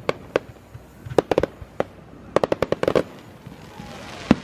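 Fireworks bursting overhead in a series of sharp bangs, with a fast run of about eight bangs in the middle and a single bang near the end.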